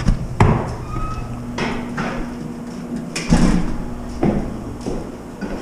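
A series of sharp knocks and clatters, about eight spread over several seconds, over a faint steady low hum.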